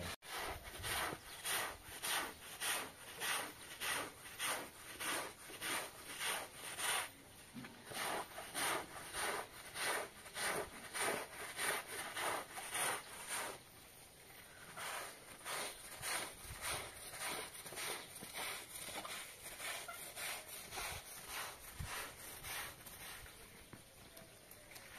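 A stiff-bristled push broom scrubbing a wet, soapy carpet in brisk back-and-forth strokes, about two a second. The strokes grow softer and less regular about halfway through.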